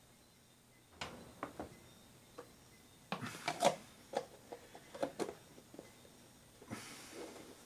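Plastic food containers and their snap-on lids handled on a wooden table: a run of light clicks and knocks, busiest around three to four seconds in, then a brief scraping rub near the end as a round lid is pressed onto its container.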